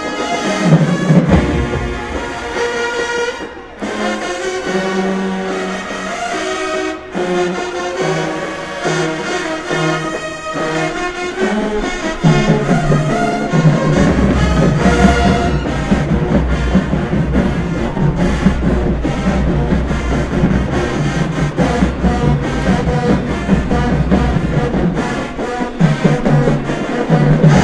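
High school marching band playing a brass-heavy tune. The music breaks off briefly twice in the first seven seconds, then comes in fuller and louder from about twelve seconds in, with heavy low brass and drums.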